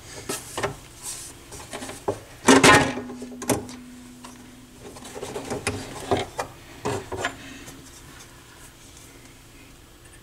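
Knocks, clicks and rubbing as the turntable's housing is handled and shifted on the workbench. One loud knock about two and a half seconds in leaves a low ringing tone that lasts a couple of seconds.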